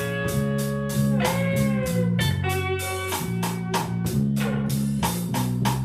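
Blues band playing a slow blues between vocal lines: electric guitar fills with bent, sustained notes over bass guitar and a steady drum beat with cymbal strokes.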